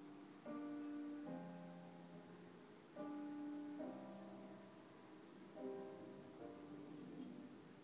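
Soft piano music playing slow, held chords, with a new chord every second or so.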